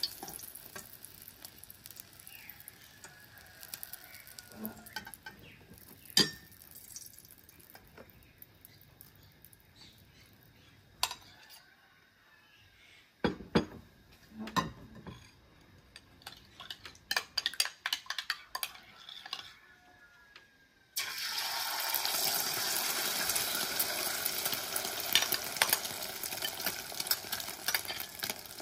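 A metal spatula and ladle clink and scrape against a steel wok several times, then about two-thirds of the way through a sudden loud sizzle starts as beaten egg hits the hot oil and keeps frying steadily.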